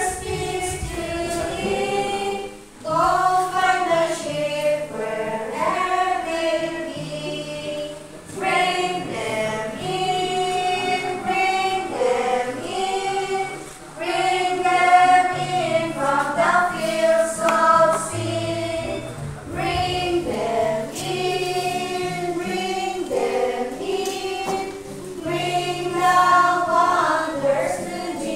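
A small group of women singing a hymn together in phrases, with short breaks between lines and low held notes sounding underneath.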